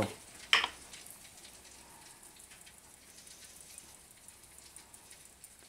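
One sharp click about half a second in, then faint, scattered light ticking and patter as dried oregano is shaken from a small glass spice jar onto whole fish in a foil-lined pan.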